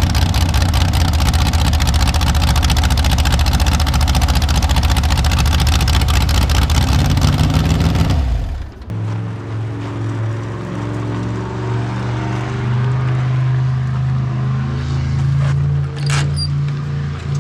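Naturally aspirated mini rod pulling tractor engine running hard at full throttle, a loud, dense, fast-firing note. It cuts off suddenly about eight seconds in, and background music follows.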